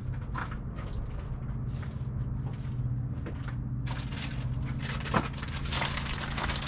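Small metal hardware and its packaging being handled: irregular rustling and clinking, with a sharp click about five seconds in, over a steady low hum.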